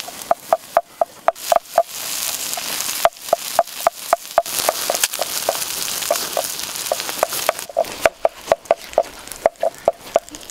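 Wooden pestle pounding in a wooden mortar, an even run of knocks about four a second. Under it, from about two seconds in until about eight seconds, pig offal sizzles with a hiss on a hot stone over the fire.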